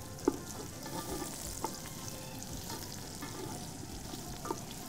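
Chopped onions sizzling in hot oil in an aluminium pot, being browned, while a wooden spoon stirs them and knocks sharply against the pot a few times.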